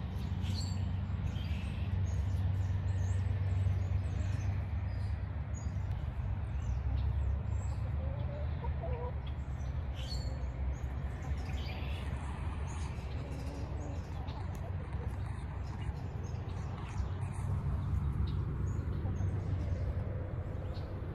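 Backyard hens foraging, giving occasional soft clucks, with scattered brief high chirps and a steady low rumble underneath.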